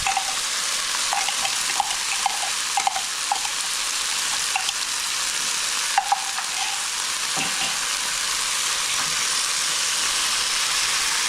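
Chicken curry sizzling steadily in a pan with tomato puree just added and being stirred in, with scattered light clicks and pops through the first half.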